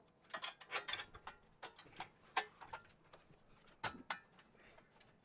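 Light, irregular metallic clicks and taps as a steel bash plate and its bolt are handled and knocked against the chassis while the bolt is started by hand.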